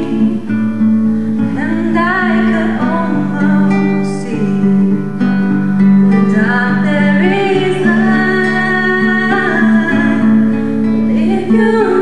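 Music: a song with guitar and singing over sustained chords.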